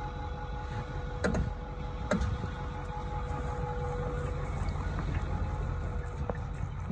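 Ford F-250 pickup's engine running, a steady low rumble with a faint steady whine. Two brief knocks about one and two seconds in.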